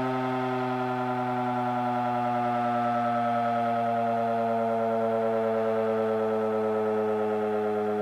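Federal Signal Model 5 mechanical outdoor warning siren sounding the attack signal, its steady wail of many overtones slowly falling in pitch.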